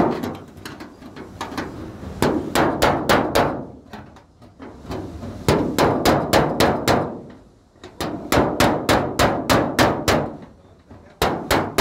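Hammer blows on a car's sheet-metal bonnet: runs of quick strikes, about four or five a second, with short pauses between runs. This is panel beating to work out crash damage.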